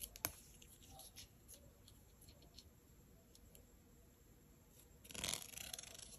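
Faint handling sounds of a serrated knife with a wooden handle turned over in the hands, with a few light clicks, then a brief scraping rustle about five seconds in.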